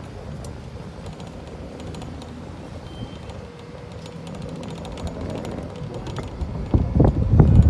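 Outdoor ambience with a steady low rumble, then wind buffeting the phone's microphone in uneven gusts from near the end, becoming the loudest sound.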